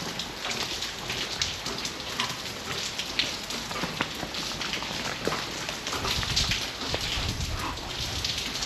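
Rain falling, with many separate sharp drips and splashes. A low rumble comes in about six seconds in.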